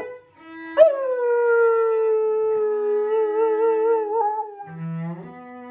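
Standard poodle howling along with a cello: one long howl that starts sharply about a second in, slides down in pitch and is held with a wavering tone until about four seconds in. Sustained cello notes sound underneath.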